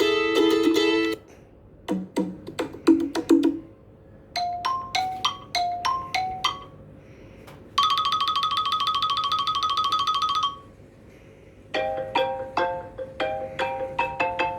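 A run of iPad ringtones played one after another, each a short electronic melody separated by brief pauses. The middle tone is a rapid, steady trill lasting about three seconds, and a new melodic tone starts near the end.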